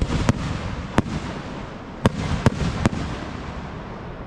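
Aerial firework shells bursting: about six sharp bangs in the first three seconds over a continuous crackle, thinning out and fading near the end.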